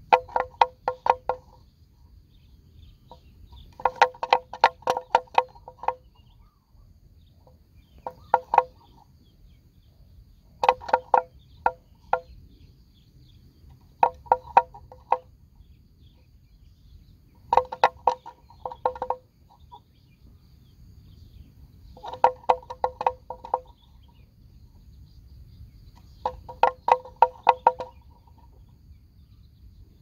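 A neck bell on a grazing water buffalo clonking in short rapid bursts of knocks, a burst every three to four seconds.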